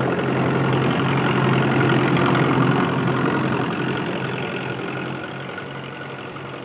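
Farm tractor engine running steadily while pulling a seed drill, fading gradually toward the end.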